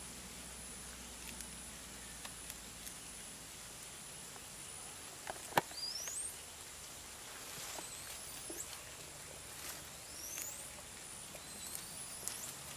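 Tropical forest ambience: a steady high insect drone with a few short rising whistled calls, over scattered clicks and rustles of leafy stems as red colobus monkeys pull at them and feed. A single sharp snap about five and a half seconds in is the loudest sound.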